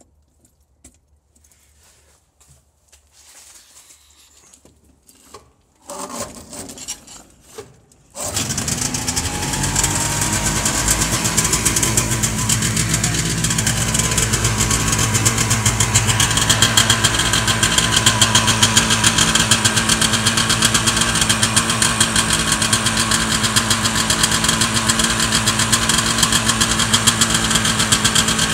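A freshly rebuilt Rotax 503 two-cylinder two-stroke aircraft engine on its first run. After a few seconds of faint handling noise and some irregular starting noise, it catches suddenly about eight seconds in and then runs steadily.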